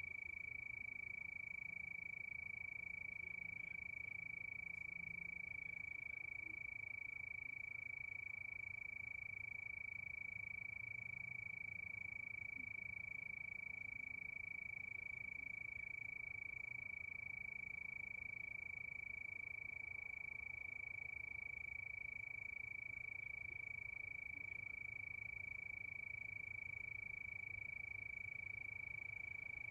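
A chorus of crickets chirping continuously at night, one steady high pitch that never breaks, over a faint low rumble.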